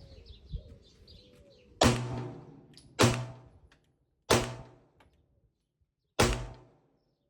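Four pistol shots from a 9mm Glock 47, the first three a little over a second apart and the last after a longer pause, each with a short echoing tail. Faint bird chirps before the first shot.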